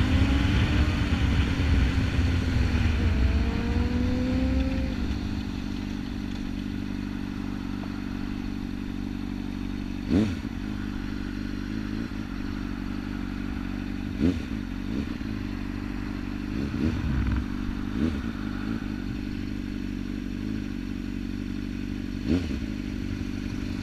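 Sport motorcycle engine running louder with shifting pitch as the bike slows, then idling steadily once stopped. A few brief sharp knocks sound about four seconds apart over the idle.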